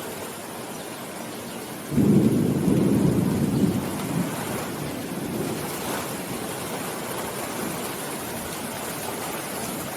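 Steady rain, with a sudden low rumble starting about two seconds in that fades away over the next few seconds.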